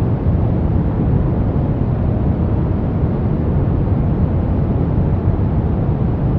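Steady brown noise: a soft, even, deep rumbling hiss, heaviest in the low end, with no change or events.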